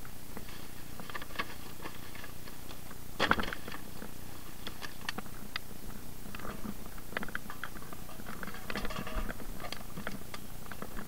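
Scattered small clicks and rattles of objects being handled, with one louder knock about three seconds in, over a steady hiss.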